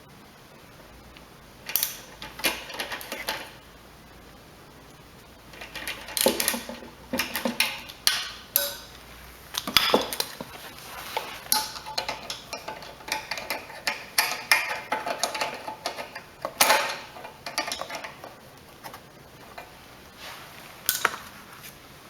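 Metal tools and small engine parts clinking and rattling in irregular bursts as they are handled and fitted, with short quiet gaps between.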